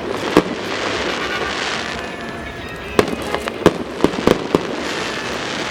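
Aerial fireworks exploding: one sharp bang about half a second in, then a quick string of about five sharp bangs from about three seconds in, over a steady hiss.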